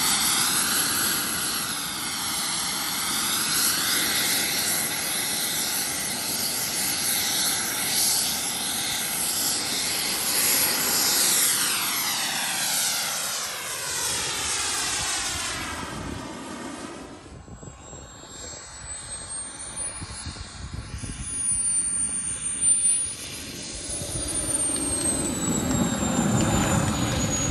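Radio-controlled model jet's gas turbine whining at high power as the jet flies low and hovers nose-up, the sound sweeping as it passes. About 17 s in the power comes back and the whine drops to a lower, wavering tone as the jet rolls along the runway.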